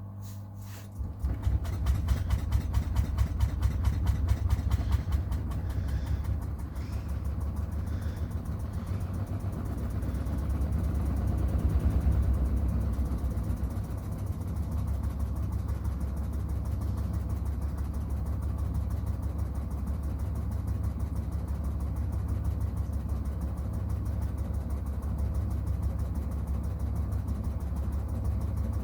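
Miele washing machine drum spinning up about a second in, a low rumble with a fast pulsing beat in its first few seconds, then running steadily: the load is out of balance (Unwucht).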